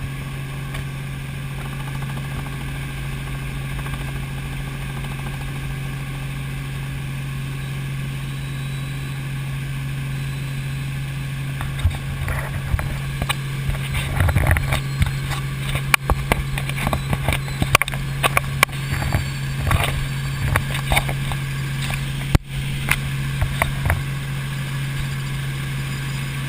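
Helicopter in flight: a steady hum from the engine and rotor. From about halfway through, irregular short crackles and knocks sound over the hum.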